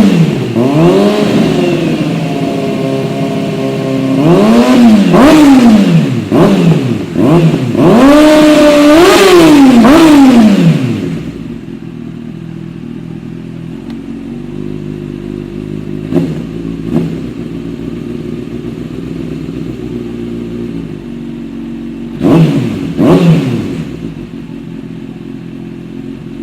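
Kawasaki ZX-6R inline-four with a JP aftermarket exhaust, blipped repeatedly, each rev rising and falling quickly, for about the first ten seconds. It then settles to a steady idle, with two more quick blips near the end.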